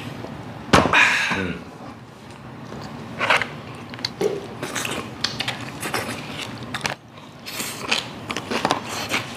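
A glass beer mug knocks down onto the table about a second in, followed at once by a short exclamation. Then come scattered light clicks of chopsticks and dishes, with chewing.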